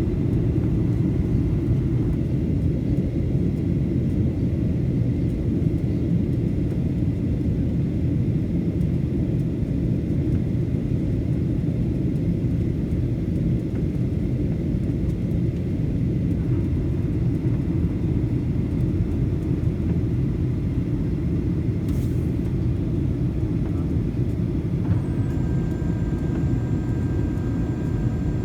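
Steady low rumble of jet engines and airflow heard inside the cabin of a Boeing 737 in flight, with a faint steady whine over it. About 25 seconds in, a few new steady tones join it.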